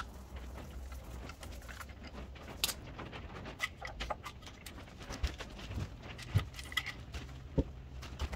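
Scattered light metallic clicks and clinks as a socket is worked off the VANOS cam-adjuster bolt and the timing chain is lifted and handled on a stripped BMW N62 V8, over a faint low hum.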